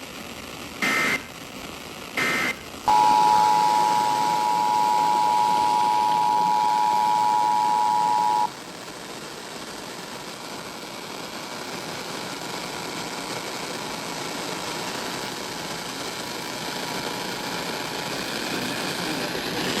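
Emergency Alert System signals: two short buzzing SAME digital data bursts, the close of a three-burst code, then the two-tone EAS attention signal (about 853 and 960 Hz together), held steadily for about five and a half seconds before it cuts off. After it comes a steady hiss of radio static that slowly grows louder.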